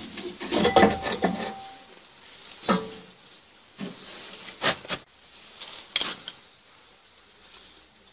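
Metal tools or parts clinking and clattering as they are handled: a burst of rattling clanks, one ringing briefly, then four separate knocks.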